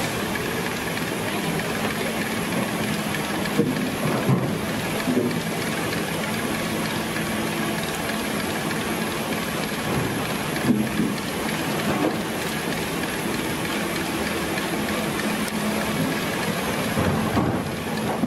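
Sennebogen 735 E log handler's diesel engine and hydraulics running steadily under load, with a handful of sharp knocks from logs in the grapple.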